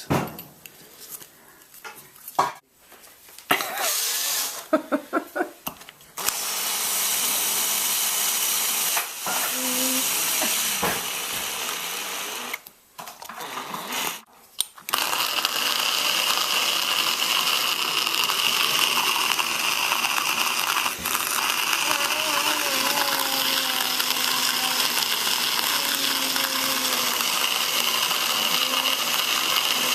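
Power drill spinning a hand burr coffee grinder, grinding beans with a steady whir. It stops for about two seconds near the middle and starts again. Before it starts there are a few seconds of clicks and clatter as it is set up.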